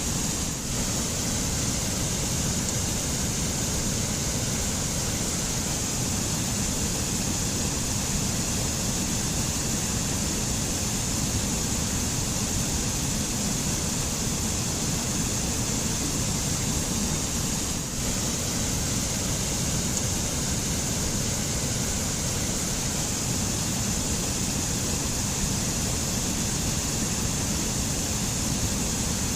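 White-water mountain stream rushing over rocks into pools: a steady, unbroken rush of water.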